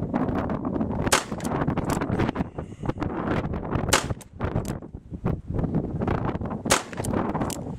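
Pietta 1873 single-action revolver chambered in .357 Magnum firing .38 Special 158-grain lead round-nose rounds: several sharp shots, spaced a second or more apart as the hammer is thumbed back for each. Steady wind noise rumbles on the microphone.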